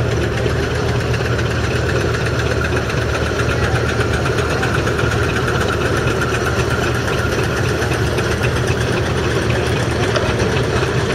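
1925 Burrell single-cylinder steam road roller running steadily, a continuous mechanical beat with a deep low rumble.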